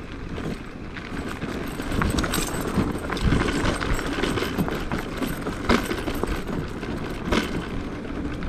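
Electric kick scooter and its towed trailer rolling over an unpaved gravel road: a steady rumble of tyres on stones, with sharp knocks and rattles from bumps, the loudest about a third of the way in, midway and near the end.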